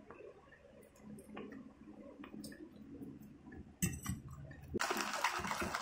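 A metal fork clicks and scrapes on a ceramic plate of noodles, then near the end a loud slurp lasts about a second.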